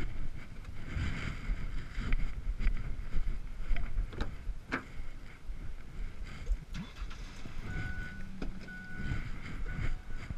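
Wind rumbling on the microphone, with scattered sharp clicks and knocks. A few short high beeps come near the end.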